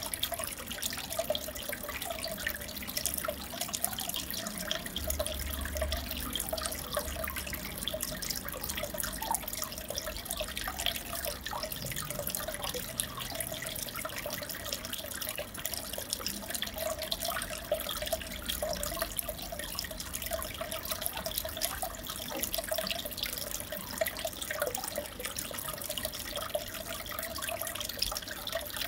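Aquarium water trickling and bubbling steadily, with a constant patter of tiny pops and splashes.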